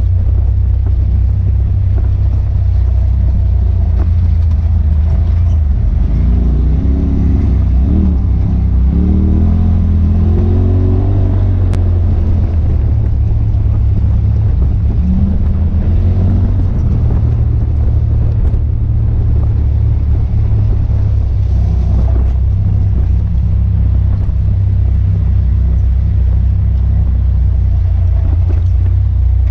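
Side-by-side UTV driving along a rough gravel trail, heard from inside the open cab: a steady, loud low rumble of engine and drivetrain. The engine pitch rises and falls a few times about a quarter of the way in and again around the middle.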